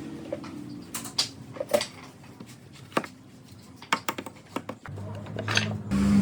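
Scattered sharp knocks and clicks of wooden door parts and hand tools being handled and fitted together during assembly, with a low steady hum that grows louder near the end.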